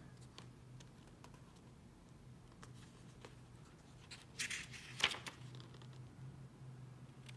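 Pages of a paper booklet being leafed through: faint paper rustles and small clicks, with two louder page turns about four and five seconds in.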